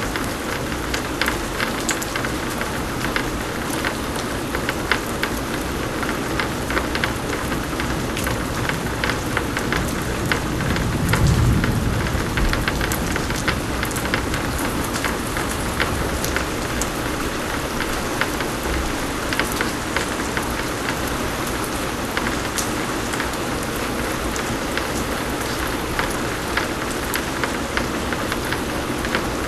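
Steady heavy rain, with many separate drops ticking on a surface. About eleven seconds in, a low rumble of thunder swells up for a couple of seconds and fades.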